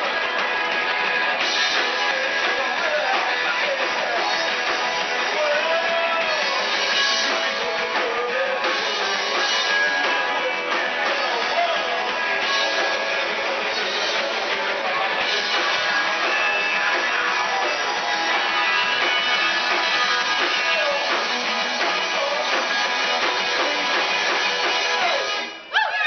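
Live rock band playing loud, guitar-driven music with drums and singing, recorded close on a camera microphone in a small room. The song stops suddenly near the end.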